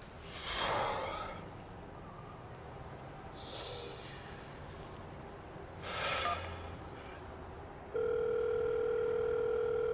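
Three heavy breaths or sighs, then about eight seconds in a phone's ringback tone starts: a steady ring of the outgoing call, heard from the handset.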